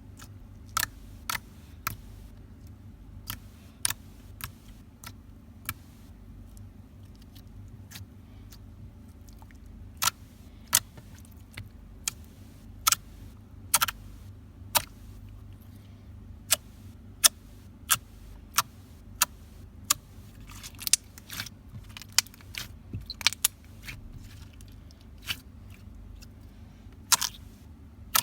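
Slime being played with, giving sharp, irregular clicks and pops, several dozen of them and thicker in a run past the middle, over a steady low hum.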